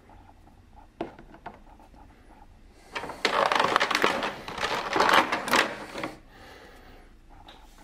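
Two light clicks of a small plastic toy figure set down on a table, then a clear plastic blister tray crinkling and crackling loudly for about three seconds as hands press and handle it.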